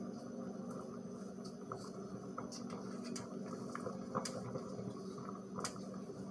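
Metal spoon working thick, melted rebatch soap in a glass measuring cup, with a few light clinks of the spoon against the glass, over water simmering in the double-boiler pot.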